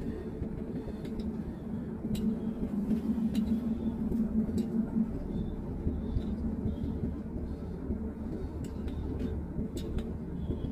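Low, steady rumble of a car driving slowly, heard from inside the cabin, with a few faint clicks. A deeper hum swells from about two seconds in and eases off again about three seconds later.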